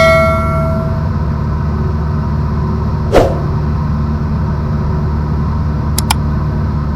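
Cessna 172 Skyhawk's engine and propeller drone steadily in the cabin. A ringing tone fades out over the first second, a sharp click comes about three seconds in, and two short clicks follow near six seconds.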